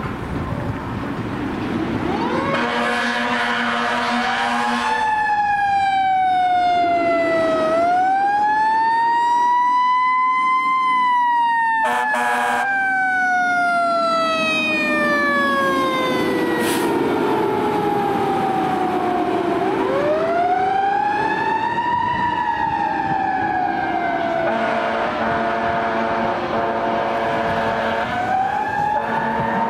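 Fire engine siren wailing in slow cycles: the pitch sweeps up in a quick curve, then falls slowly over several seconds. Steady air-horn blasts sound over it near the start and again near the end.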